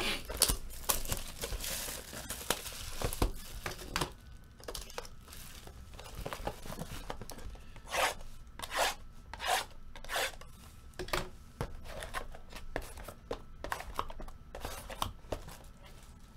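Trading-card packs being torn open and cards handled: a string of short tearing and rubbing sounds, a few louder ones about halfway through.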